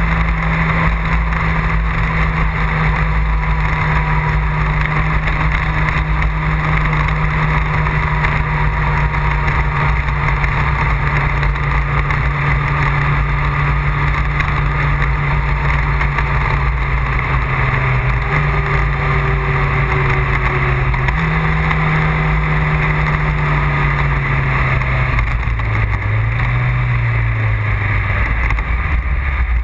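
A vehicle engine at a steady cruise, with wind buffeting the microphone. In the second half the engine note jumps up in pitch twice and then falls over the last few seconds as the vehicle slows.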